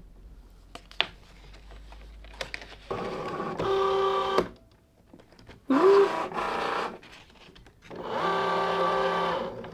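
Cricut Joy cutting machine's motors drawing in a sheet of Smart Vinyl: three short runs of a steady pitched whine, about three, six and eight seconds in, the second starting with a quick rising glide. The machine is loading the material and checking that there is enough length for the cut.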